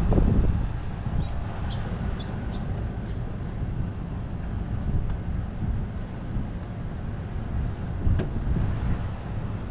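Low, uneven rumble of wind on the microphone, with a knock at the start, a few faint light clicks in the first seconds and one sharp click about eight seconds in.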